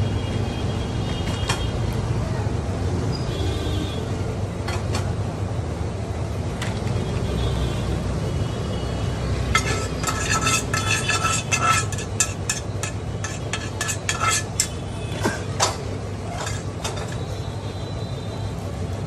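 Metal utensils and dishes clinking in a quick, ringing cluster about halfway through, thinning out a few seconds later, over a steady low rumble.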